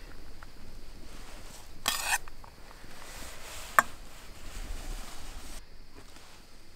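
Metal spoon scraping and clinking against a stainless-steel bowl and tray while spooning out chopped onion and cilantro: a brief scrape about two seconds in, then one sharp clink just before four seconds.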